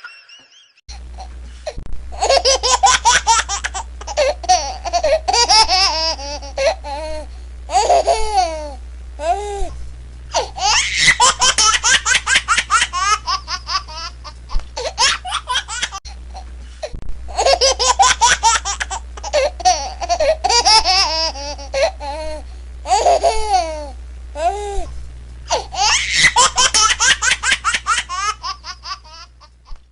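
Laughter sound effect: a voice laughing in long, wavering peals, the same laugh played twice in a row over a steady low hum.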